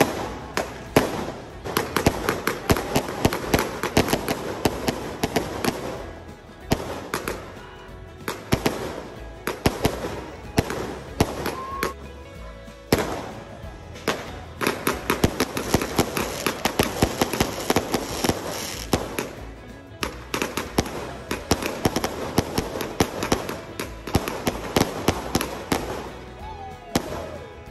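Fireworks going off in quick succession: a dense, continuous run of sharp bangs and crackles with a few brief lulls.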